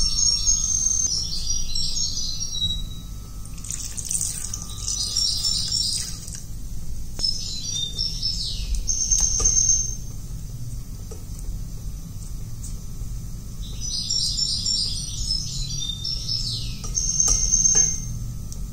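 Small bird chirping and trilling in about five bursts a few seconds apart, over a low steady hum.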